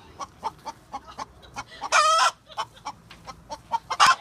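Domestic chickens clucking in quick short notes, about three or four a second. One hen breaks in with a loud pitched squawk about two seconds in, and there is another sharp loud call near the end.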